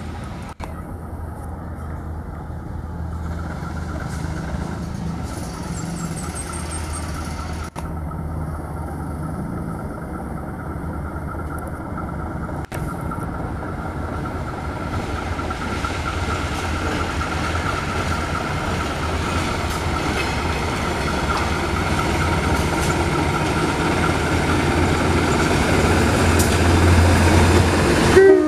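CC 201 (GE U18C) diesel-electric locomotive hauling a train of container flatcars past. A steady low engine drone, growing louder as the train comes by and the wagons roll past.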